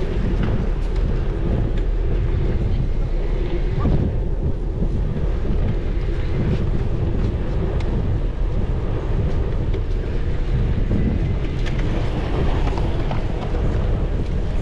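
Steady wind buffeting the microphone of a moving bicycle-mounted camera, a continuous low rumble with a few faint ticks.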